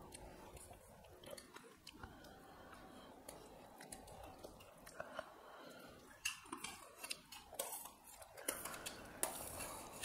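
Soft chewing and eating by hand, with light clinks of a steel spoon against steel plates as fish curry is served. The clinks come more often in the second half.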